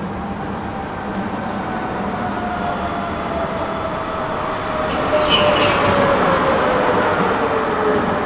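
Electric tram running on its rails with a steady rumble and a motor whine that falls steadily in pitch as it slows. A thin, high squeal from the wheels sounds through the middle, and the noise grows louder about five seconds in.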